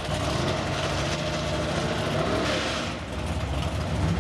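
Drag-racing car engines running loudly at a mostly steady pitch, with a brief dip and change in the engine note about three seconds in.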